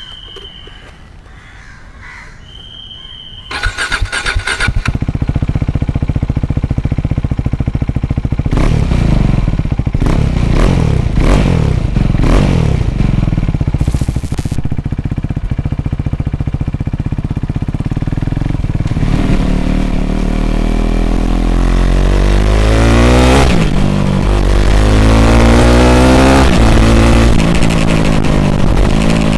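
KTM RC 390's single-cylinder engine through a replica Kurlapovic exhaust: it starts about three and a half seconds in, idles and is blipped sharply several times, then pulls away, rising in pitch through each gear and dropping at every shift.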